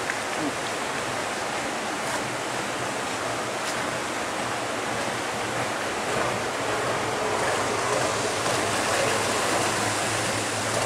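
Steady rushing of churned water with a faint low engine hum underneath, from small motor boats running slowly while they hold position in a lock.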